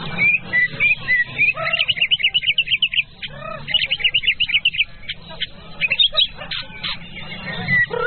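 White-rumped shama (murai batu) singing: clear whistled notes at first, then two fast runs of rapid repeated chirps about two and four seconds in, followed by scattered sharp notes.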